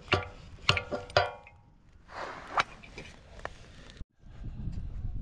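Sharp metallic clanks with brief ringing: about four in quick succession, then softer knocks and rattles. This is steel sawmill frame parts being handled, with a bracket knob being fastened by hand.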